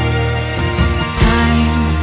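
Background music with held notes and a light beat; the chord and bass note change a little over a second in.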